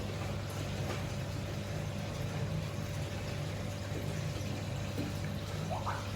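Steady low hum of an aquarium pump running, with a few faint clicks.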